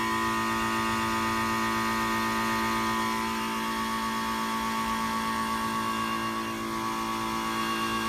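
Air-conditioner condenser's compressor running with a steady hum, over it a steady whistle from the compressor's internal pressure relief valve venting. The condenser fan is stopped by a failed dual run capacitor, so head pressure has climbed until the relief opened, and the compressor is getting very hot.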